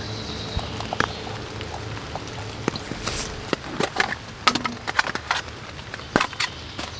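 Hands handling camping gear: clicks and rustles as a canister stove is fitted to its gas canister, then a run of sharper clicks and rustling from about halfway through as utensils and packets are handled.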